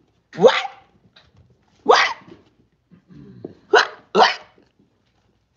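Golden retriever puppy barking: four short, high yips, the last two close together, with a brief low grumble just before the third.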